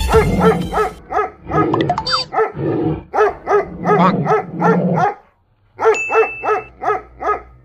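A dog barking at a stuffed toy tiger in a rapid, even series of several barks a second, broken by a short gap a little after five seconds and then resuming.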